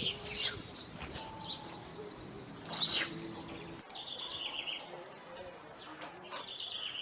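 Small birds chirping and twittering in the background, with many short high calls, one louder sweeping call about three seconds in, and trilled phrases later.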